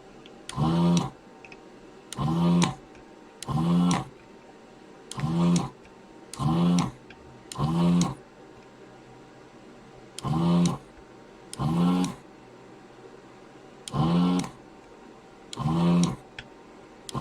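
Vacuum pump of a ZD-915 desoldering station, switched on in short pulses by the desoldering gun's trigger to suck molten solder out of through-holes. There are about eleven brief hums, one or two seconds apart, each rising and then falling in pitch.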